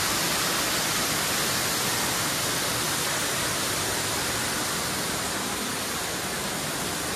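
Steady rush of water falling over a waterfall close by, an even hiss with no pauses or changes.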